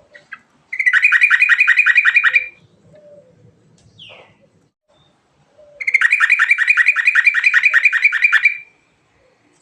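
Yellow-vented bulbul singing two fast, loud rolling trills of evenly repeated notes, about seven notes a second. The first lasts about two seconds and the second about three, with a faint short call between them.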